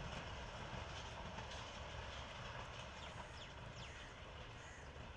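Passenger train receding into the distance after passing at speed, its low rumble slowly fading away. A few faint high chirps sound over it.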